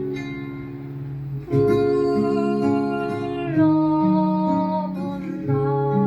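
Background music: acoustic guitar strumming chords that change every two seconds or so.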